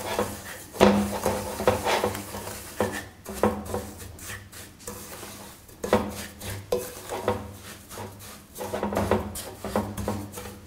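Wooden spoon stirring egg and sugar in a glass mixing bowl: irregular scraping, with sharp taps of the spoon against the glass.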